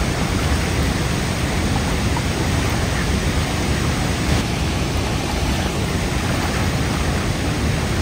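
A large waterfall rushing steadily, a heavy flow of water pouring over rock ledges. The sound is a constant even noise, strongest in the low end.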